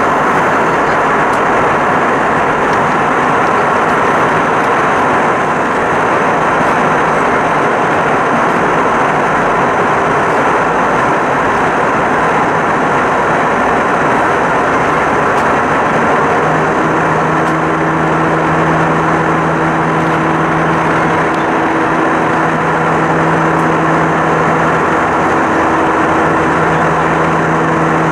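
Airbus A320-200's IAE V2500 turbofan engines at climb power, heard inside the passenger cabin as a loud, steady rush of engine and air noise. A little past halfway, a low steady hum joins in and holds.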